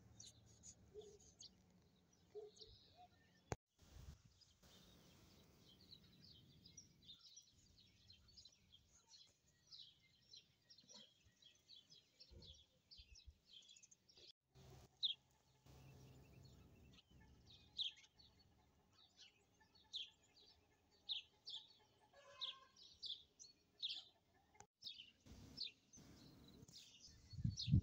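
Faint birds chirping in the background, many short high chirps repeated throughout and more frequent in the second half.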